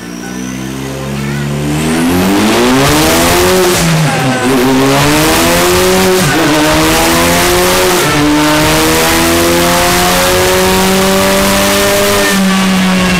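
Car engine revving hard: its pitch climbs over the first few seconds, then holds at high revs, dipping briefly twice as the throttle is lifted and reapplied, over a loud steady hiss.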